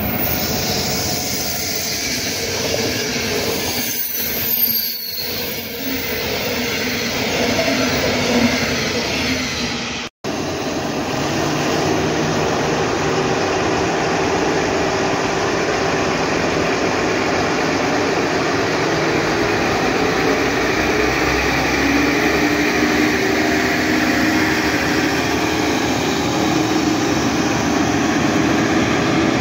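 An alex passenger train hauled by a Taurus electric locomotive passing at speed on electrified main line, a dense rumble of wheels and rails. About ten seconds in the sound cuts to two coupled Class 628 diesel multiple units moving along a track, their diesel engines running steadily.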